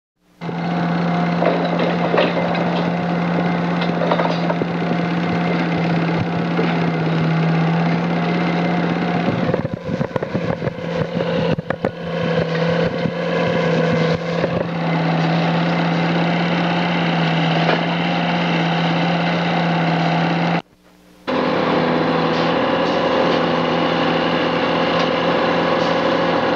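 Steady mechanical running noise with a constant low hum under a hiss, cutting out abruptly for a moment about 21 seconds in.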